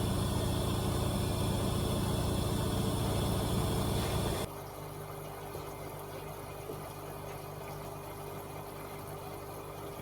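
AEG Öko-Lavamat 74780 washing machine running a wash cycle: a steady loud running noise cuts off suddenly about four and a half seconds in, leaving a quieter steady hum.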